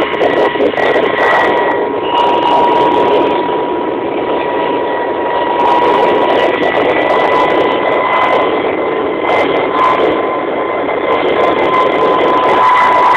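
Kamov Ka-26 helicopter in flight, heard from the cabin: its two radial piston engines and coaxial rotors running steadily, with a constant high whine over a loud rush.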